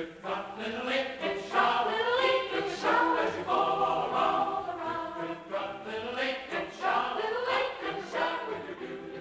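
Background music: a choir singing, its voices sliding up and down in long phrases.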